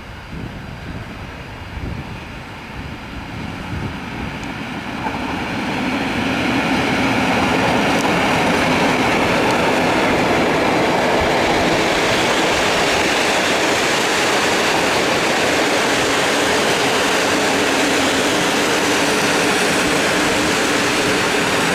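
Passenger train hauled by an electric locomotive running past close by. Its noise grows over the first several seconds as the locomotive nears, then holds loud and steady as the carriages roll past.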